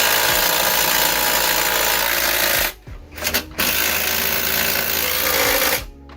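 Power tool tightening a nut onto a bolt of the tire carrier, running in two long bursts with a short break and a couple of quick blips between them.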